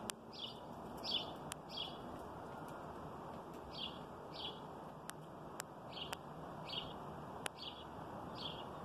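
A small bird chirping over and over, short high chirps coming every half second to a second, often in pairs, with a few faint sharp clicks in between.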